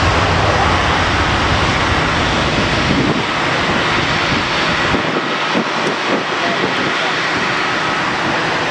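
Airbus A330 jet engines running at taxi power as the airliner moves away, a loud, steady rushing noise. Its low rumble drops off about halfway through.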